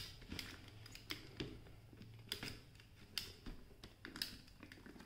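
Faint, irregular plastic clicks and taps of a phone in its case being pressed and fitted into a spring-clamp plastic phone holder, about seven clicks spread over a few seconds.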